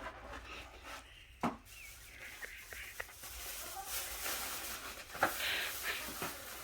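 Scattered light taps, clicks and rubbing of food and tableware being handled, with a sharper tap about a second and a half in and another near the end.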